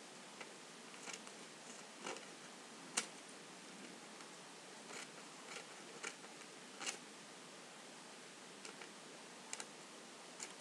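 Scissors snipping through a sheet of paper: about a dozen short, irregularly spaced snips, the sharpest about three seconds in.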